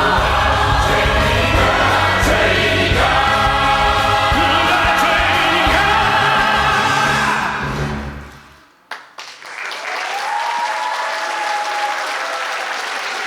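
Choir music with a strong bass, singing, fades out about seven seconds in; after a short pause and a click, an audience applauds.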